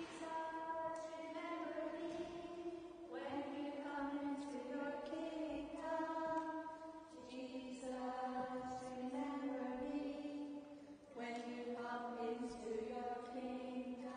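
Voices singing a slow hymn melody in unison, held notes stepping from one pitch to the next in phrases of about four seconds.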